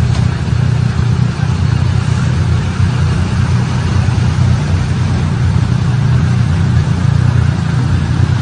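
Engines of waiting cars and motorcycles idling together: a steady low rumble.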